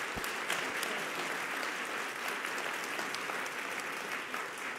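An audience applauding: steady clapping from many hands, tailing off near the end.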